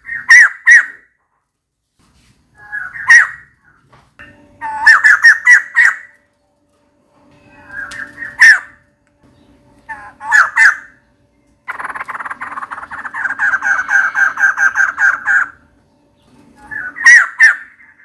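Female white-crested laughingthrush calling for a mate: short harsh chattering bursts every couple of seconds, then a longer rapid chattering run of about four seconds around the middle.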